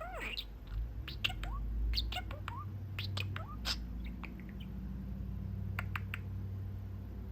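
Pet budgie (budgerigar) chattering in quick short chirps and little gliding calls, busiest in the first few seconds with a couple more near the end, over a low steady hum.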